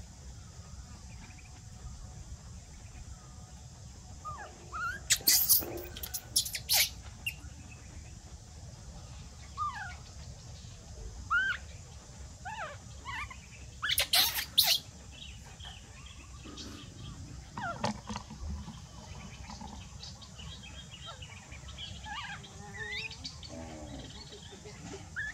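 Birds chirping on and off in short rising and falling calls, with two clusters of loud sharp clicks, about five seconds in and again about fourteen seconds in.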